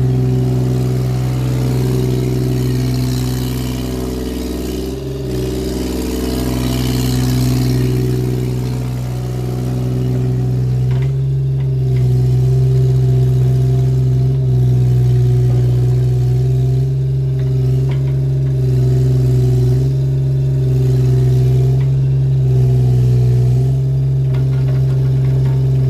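Caterpillar 303CR mini excavator's diesel engine running steadily under throttle while the machine is worked, its note shifting slightly as the load changes.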